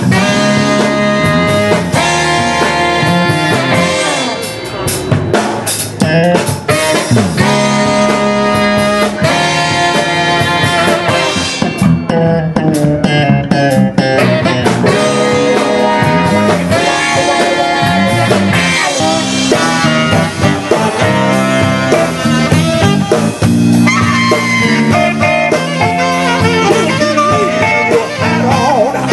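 A band playing a blues-style instrumental passage on drum kit and electric guitar.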